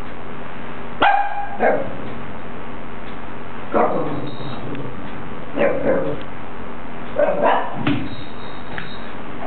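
Small long-haired dog barking at a balloon: about eight short, sharp barks in four bursts a second or two apart, some single and some doubled.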